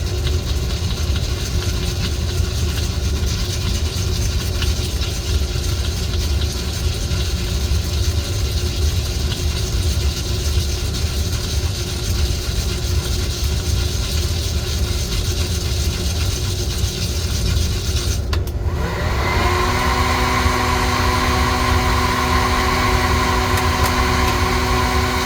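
Coffee roaster running mid-roast, a steady low rumble with an airy hiss. About three-quarters of the way in, the hiss dips for a moment. A motor then spins up, rising in pitch, and settles into a steady hum with a whine.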